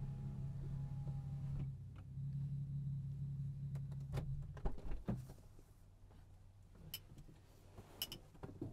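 2013 Nissan 370Z Nismo's 3.7-litre V6 idling, briefly dipping about two seconds in, then switched off about five seconds in with a few knocks as it stops. A handful of sharp clicks follow in the quiet cabin.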